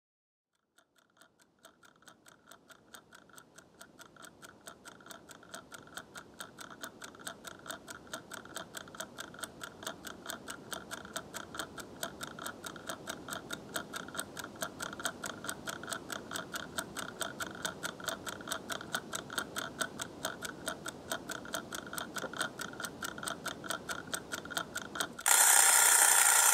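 Wind-up pear-shaped kitchen timer ticking steadily and quickly, growing gradually louder. Near the end its bell suddenly rings out loudly as the countdown runs out.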